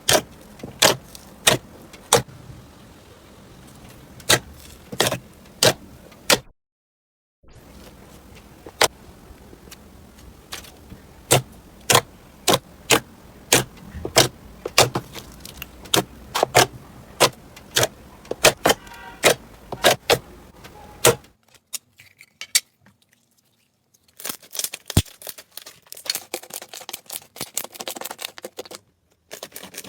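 Slime being pressed and stretched by hand, giving sharp pops as trapped air bursts, about one or two a second. Near the end comes a dense crackle of small clicks, typical of crunchy slime being squeezed.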